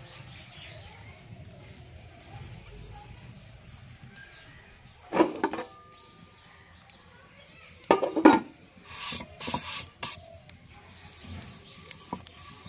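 Handling noises while shaping dough: two short knocks about five and eight seconds in, then a few seconds of rubbing and scraping on a wooden board.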